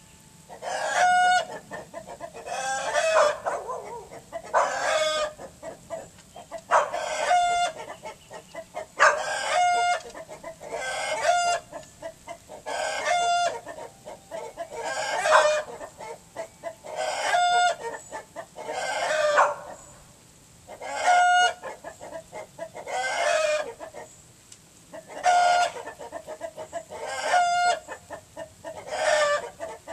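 Chickens calling over and over, one loud call about every two seconds, each with a held note.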